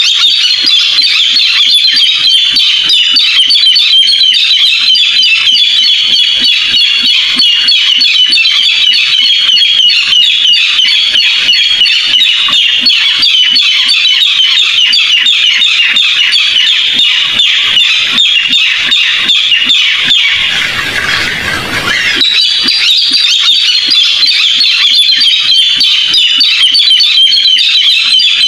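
Barred rail (tikling) calls played as a looped trapping lure: a continuous, rapid run of harsh, high notes. A brief noisy break, without calls, comes about three-quarters of the way through.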